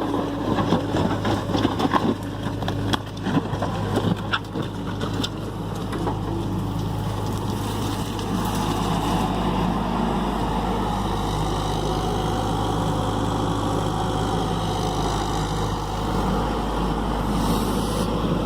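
John Deere excavator's diesel engine running steadily, with a series of knocks and clanks over the first few seconds.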